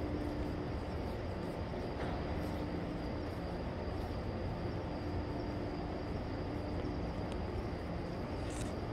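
Steady outdoor background rumble and hum, with faint steady tones running through it and no voices; a faint brief click near the end.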